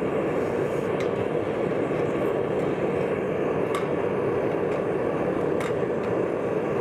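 Two-burner gas forge running with a steady burner roar, with a few faint clicks.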